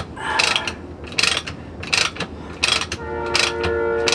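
Ratchet wrench being worked in repeated short clicking strokes, roughly one or two a second, while the transmission is bolted up. From about three seconds in, a steady pitched tone with overtones sounds under the clicks.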